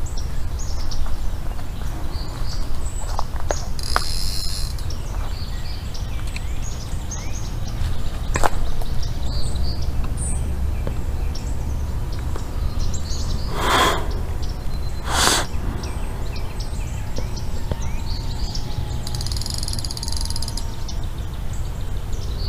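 Birds chirping and calling, with two longer high calls about four seconds in and near the end, over a steady low rumble. Three brief sharp sounds come in the middle.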